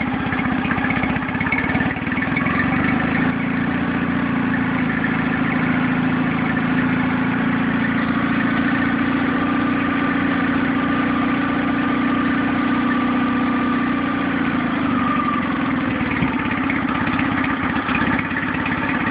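New Nissan 9.8 hp four-stroke outboard motor idling rough and uneven on its first run, at its out-of-the-box idle setting with the choke all the way in. The owner hopes the roughness will go once it is broken in or adjusted.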